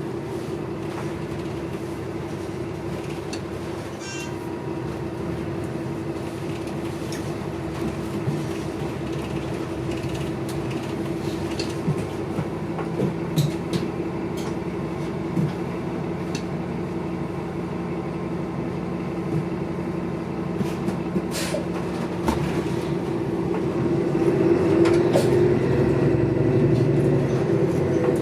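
City bus heard from inside the cabin while moving: a steady engine and road drone with scattered clicks and rattles, growing louder about 24 seconds in.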